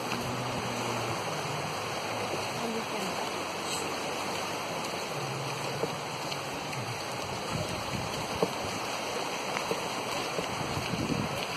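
Small sea waves washing onto a sandy beach, a steady rushing, with a faint motor hum from boats offshore near the start and again around five seconds in.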